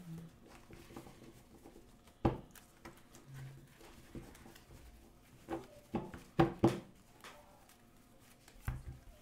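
Decks of Magic: The Gathering cards being shuffled by hand, with scattered sharp knocks as the decks are handled against the table: one about two seconds in, a cluster of four a little past the middle, and one more near the end.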